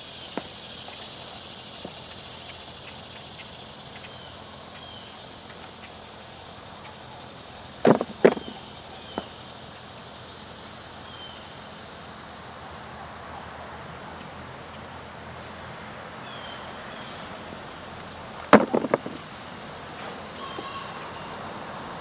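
Steady chorus of insects, a constant high buzz in the background. Two brief clusters of knocks stand out, about eight seconds in and again near nineteen seconds in.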